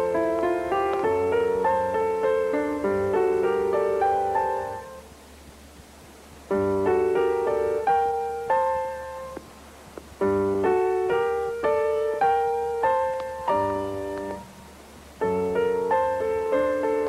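Background score music: a piano playing melodic phrases of separate, decaying notes, broken by three short pauses.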